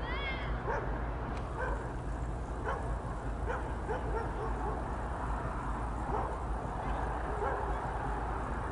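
Short, distant animal calls, like barks, repeated irregularly over a steady low outdoor rumble.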